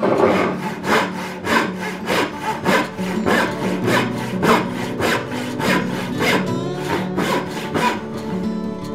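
Dovetail saw cutting by hand into ash end grain, with even back-and-forth strokes at about two a second as it saws down the dovetail lines.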